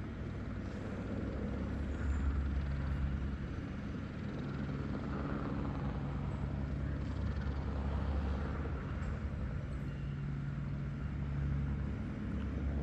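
Steady low drone of a helicopter's engine and rotor, growing a little louder about two seconds in.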